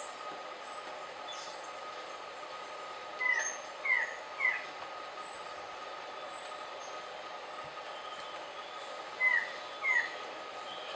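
Forest ambience with a steady high-pitched hum and faint high chirps. Over it a bird gives short, falling whistled notes: three in quick succession about three seconds in, and two more near the end.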